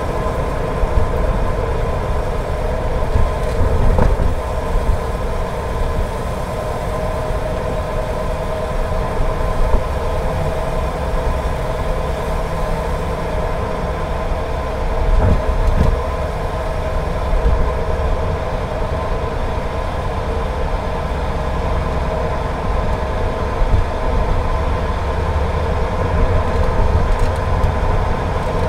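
Car driving along a road: steady engine and tyre rumble with a constant hum, broken twice by a brief bump.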